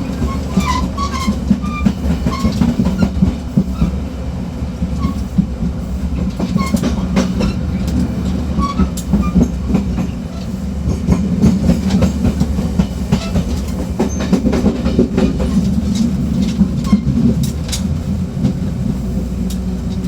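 Gangway between two cars of a diesel multiple unit train in motion: a steady low rumble of engine and running gear, with frequent rattling clicks and knocks from the coupling and gangway plates. Brief squeaks come in the first couple of seconds.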